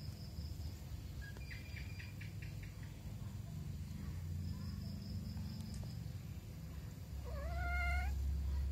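A tabby kitten mews once near the end, a single call about a second long that rises in pitch, over a steady low hum.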